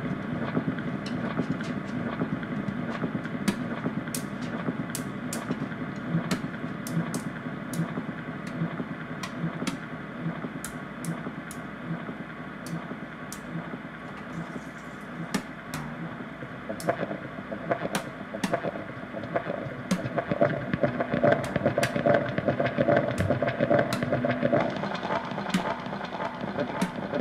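Free-improvised drums and guitar: irregular, sharp percussive clicks scattered over a dense, noisy sustained texture, with a held mid-pitched tone coming up about two-thirds of the way through.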